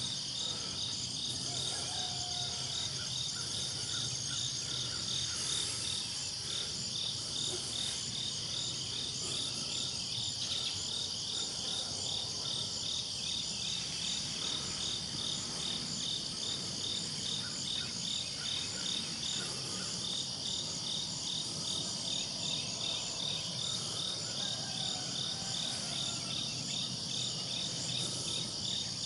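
Evening chorus of crickets and other insects: a steady high-pitched drone with a regular pulsing chirp running through it.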